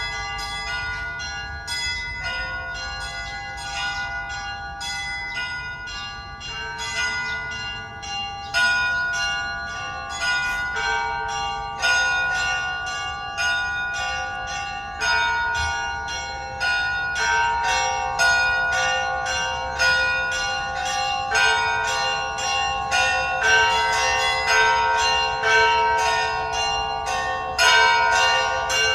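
Church bells ringing together: many bells of different pitches struck in quick, overlapping strokes, each one ringing on, the peal growing louder toward the end.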